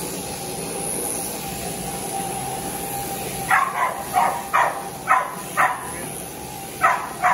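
Electric sheep-shearing handpiece running steadily as a ewe is shorn. From about three and a half seconds in, a run of short, sharp animal calls, about two a second, louder than the machine.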